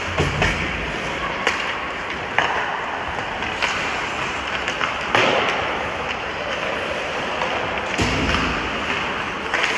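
Ice hockey play: steady rink noise with skates scraping on the ice, broken every second or so by sharp clicks and knocks of sticks on the puck.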